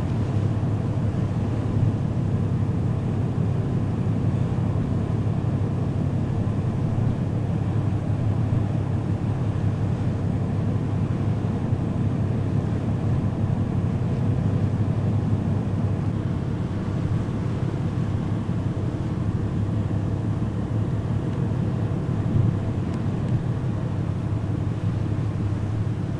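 Steady low drone of the ferry Aogashima Maru's engines, heard on deck, with a constant rush of wind and sea over it.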